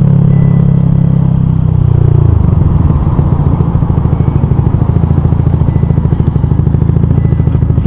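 Yamaha YZF-R125's single-cylinder four-stroke engine running as the bike is ridden; about two seconds in the revs drop and it settles into a low, even pulsing beat.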